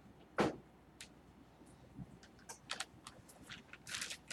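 Faint scattered clicks of typing on a keyboard, with one louder knock about half a second in.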